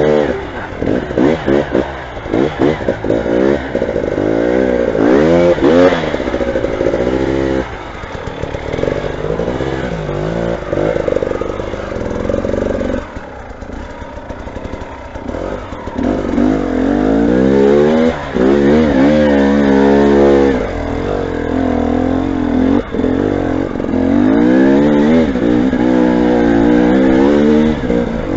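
Motorcycle engines revving over and over, the pitch climbing and dropping with each burst of throttle. The revving eases to a lower, steadier run for a few seconds midway, then picks up again.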